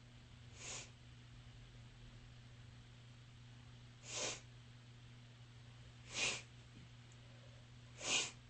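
A person sneezing: four short, breathy sneezes a couple of seconds apart, each louder than the one before.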